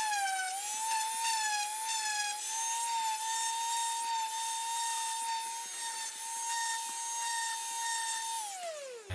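Electric power sander running with a high, steady whine, its pitch dipping briefly again and again as the wood is pressed against it, then switched off and spinning down in the last second.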